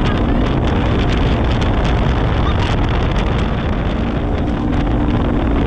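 Side-by-side UTV driving over a rough dirt track: the engine running steadily under the noise of wind buffeting the microphone, with many short rattles and knocks from the cab and the ground.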